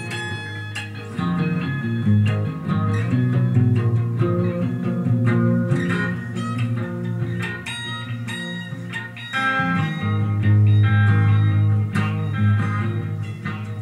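Electric guitar being played: picked single notes ringing over low sustained notes.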